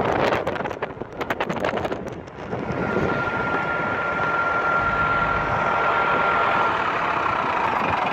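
Traffic noise from a car driving in city traffic among coaches. Wind buffets the microphone for about the first two seconds, then gives way to a steady rumble with a thin, high whine through the middle.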